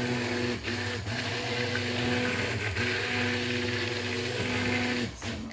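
Handheld stick blender running in a bowl of cold process soap batter, blending the oils and lye water toward emulsion. Its motor hums steadily with a few brief breaks and stops near the end.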